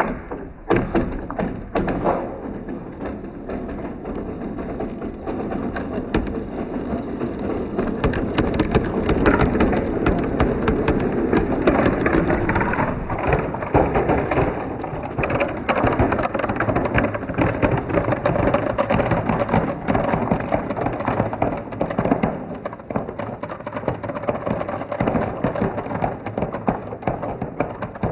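A great many marbles rolling and clattering down a marble run, a dense, steady rattle of clicks over a rolling rumble that starts suddenly at the opening.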